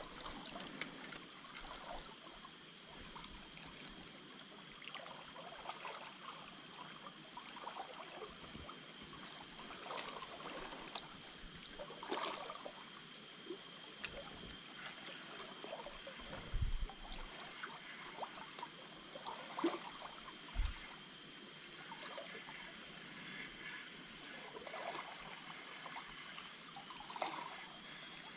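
Quiet riverside ambience: a steady high-pitched hiss with faint water trickling and scattered light clicks, and two soft low bumps a little past the middle.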